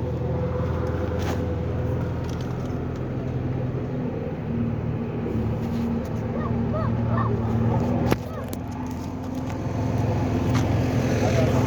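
A steady low mechanical hum, with a few short, faint puppy whimpers about six to seven seconds in and a sharp click just after eight seconds.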